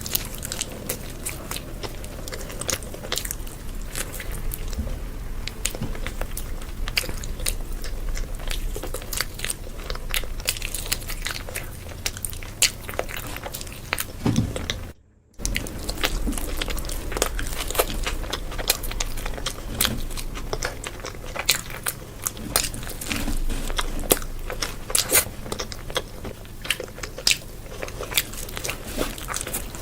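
Close-miked eating: a person biting into and chewing crunchy food, with many sharp crackles and crunches. The sound cuts out briefly about halfway through, then the crunchy chewing resumes.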